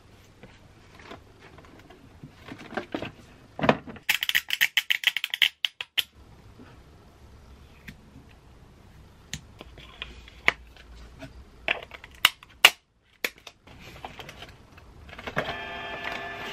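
Plastic clicks, knocks and rattles from a Dymo LabelWriter 4XL label printer being reloaded: lid opened, label roll handled and fed into the slot. There is a quick run of sharp clicks about four seconds in and a few single clicks later. Music comes in near the end.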